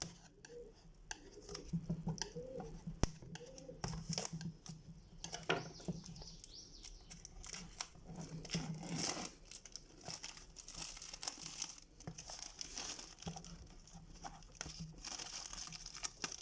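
Plastic packaging on a smartphone box being cut with a knife and pulled away, crinkling and tearing in short, irregular crackles.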